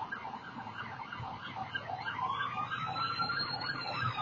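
Emergency vehicle sirens, growing louder. One is on a fast yelp, sweeping up and down about three times a second. About two seconds in, a second siren on a slow wail joins it, rising and then starting to fall.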